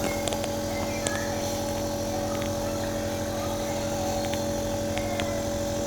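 A small motor running with a steady hum, with a few faint clicks.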